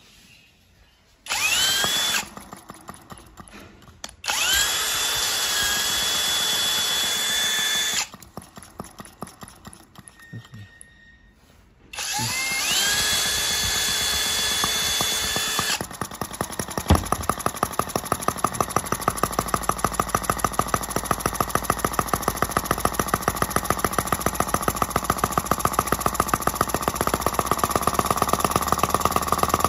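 Brass model single-cylinder flywheel gasoline engine being spun over three times by a drill-like starter: each time a whine rises and holds one pitch for a few seconds, then the engine coasts down with slowing puffs. About 16 s in it catches, gives one sharp bang, and runs on its own with a steady, even firing beat.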